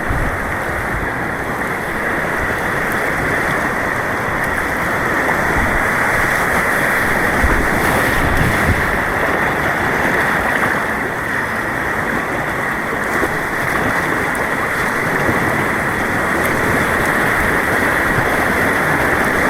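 Steady rushing of white water on an artificial rapids course as a kayak runs through it, loud and continuous with a dull, muffled tone.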